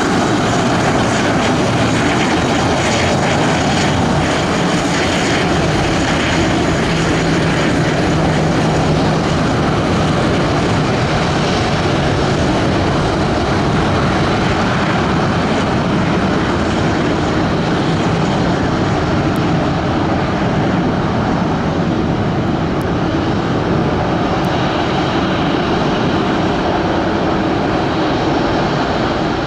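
A Boeing 737-300's twin CFM56-3 jet engines running steadily as the jet taxis: a loud, even rumbling noise with faint high tones over it.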